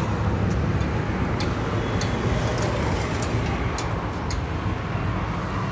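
A motor vehicle's engine idling with a steady low hum. A few faint ticks sound over it.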